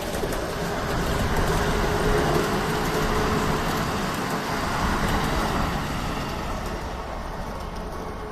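A passing vehicle rumbling, swelling over the first couple of seconds and slowly fading away toward the end.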